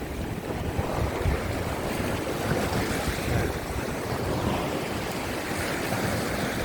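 Sea surf washing against coastal rocks in a strong wind, an even rushing noise, with gusts buffeting the microphone as a low rumble.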